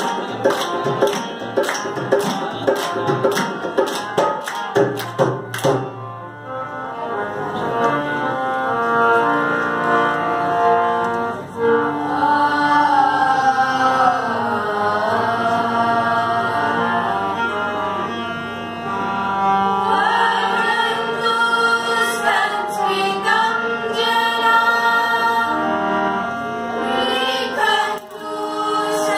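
A group of children sing a Sanskrit qawwali. For the first six seconds or so, fast rhythmic hand-clapping and percussion run under the voices. Then come long held sung lines over a steady low drone, and the claps return briefly near the end.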